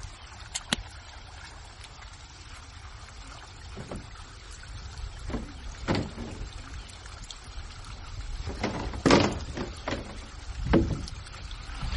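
Water splashing in short irregular bursts, the loudest about nine seconds in, over a low steady rumble.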